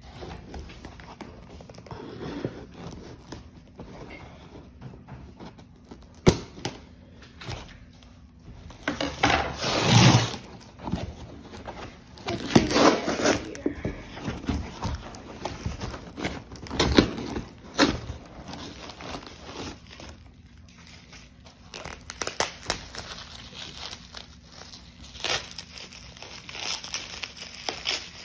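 A cardboard box being opened by hand: paper crinkling and tearing and cardboard flaps rustling and scraping in irregular bursts, loudest about ten and thirteen seconds in, with a couple of sharp knocks.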